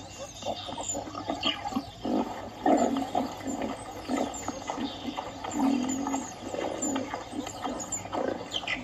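Wild animals giving short low grunts in a quick, irregular stream, with faint high chirps now and then above them.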